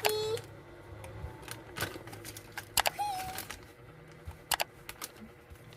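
Scattered light clicks and taps from small objects being handled, with a brief voice sound about three seconds in.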